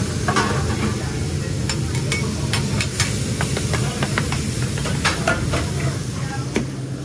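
Shaved steak, onions and peppers sizzling on a steel flat-top griddle, with repeated sharp clicks and scrapes of metal spatulas against the griddle, over a steady low hum.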